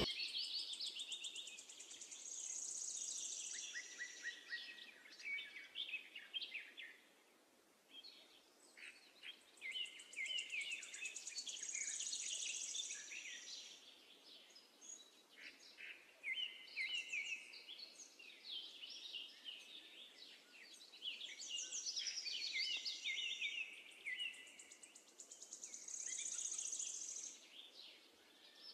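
Faint bird song: bouts of high chirps and trills that come and go every few seconds.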